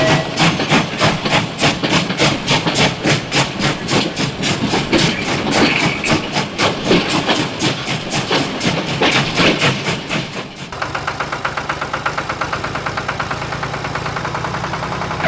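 Engine chugging in an even beat of about five knocks a second. About ten seconds in, it cuts abruptly to a smoother, faster-rippling engine sound.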